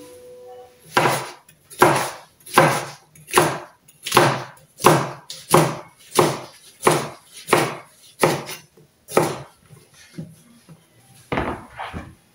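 Chef's knife slicing peppers on a wooden cutting board: a steady run of about a dozen sharp chops, roughly one every two-thirds of a second. A few lighter taps follow, then a last quick pair of knocks near the end.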